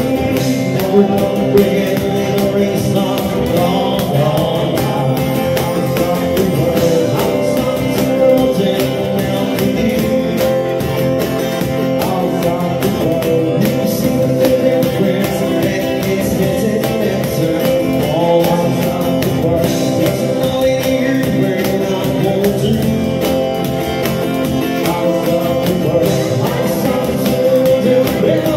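Live band music: acoustic guitars strummed along with a man singing the lead vocal through a microphone.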